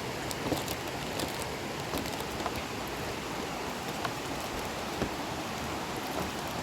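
Waterfall: a steady rush of falling and splashing water, with scattered small splashes and drips on top.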